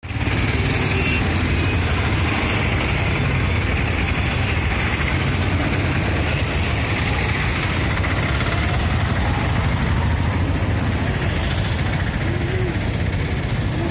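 A steady, loud low rumble with a constant hiss, the kind an engine running nearby makes.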